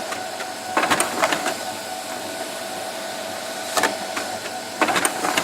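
Office printer running: a steady mechanical whir with a constant tone, broken by bursts of clicking and clacking from the paper feed and print mechanism about a second in, near four seconds and again around five seconds.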